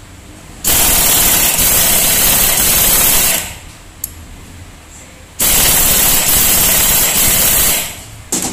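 Pneumatic impact wrench hammering on the nut of a scooter's CVT drive pulley: two bursts of about two and a half seconds each, a rapid rattle with a loud air hiss, separated by a pause of about two seconds.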